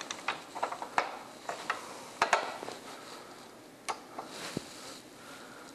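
Light, irregular clicks and taps of hand handling: a screwdriver and a small screw knocking against a lamp holder as it is lined up on a plastic electrical box.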